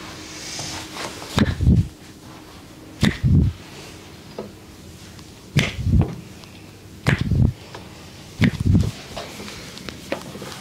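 Percussive massage strokes with the hands on the body: five double slaps, each a pair of quick hits, coming a second or two apart.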